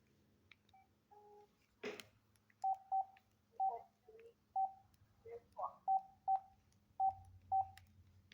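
Phone keypad beeping: about a dozen short beeps, irregularly spaced at roughly two a second, with a sharp click about two seconds in.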